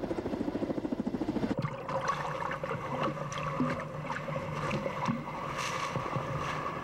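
Helicopter rotor beating fast and evenly for about the first second and a half. It breaks off suddenly into rough sea water splashing and sloshing around swimmers in high waves, with scattered sharp splashes.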